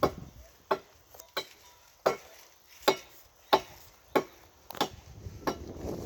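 A hand blade chopping tree branches: about nine sharp strikes, evenly spaced, a little more than one a second.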